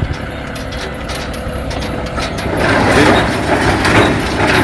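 A vehicle running and moving, with a steady low rumble and a few knocks, joined about halfway through by a louder, uneven rushing rattle.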